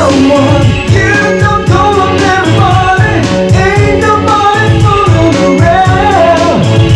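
Pop song with a sung lead vocal over a steady drum beat.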